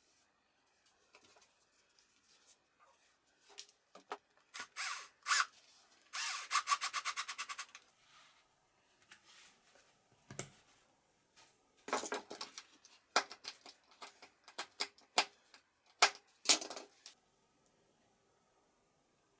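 Small metal parts for a jigsaw jig's guide bearings being handled and fitted on a workbench: scattered clicks and knocks. About six seconds in comes a rapid run of about a dozen clicks a second lasting under two seconds, and from about twelve to seventeen seconds dense clusters of clicks.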